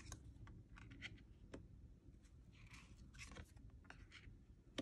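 Faint handling of thick, smooth cardstock oracle cards: scattered light taps and a couple of brief soft slides as cards are moved from pile to pile.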